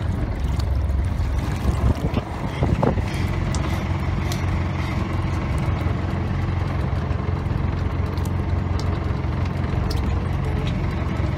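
A boat's engine running with a steady low hum.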